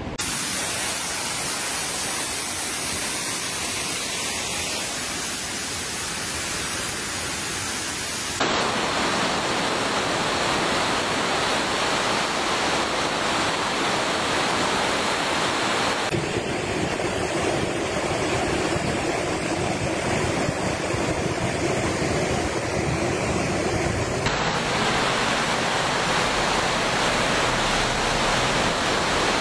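A flooded, swollen river rushing past as a steady noise of fast, churning water. Its tone and loudness change abruptly three times.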